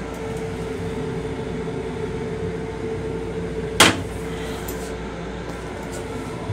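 A black plastic toilet seat is lowered onto a stainless-steel train toilet bowl with a single sharp clack about four seconds in. Under it runs the steady noise and hum of the M7 commuter railcar.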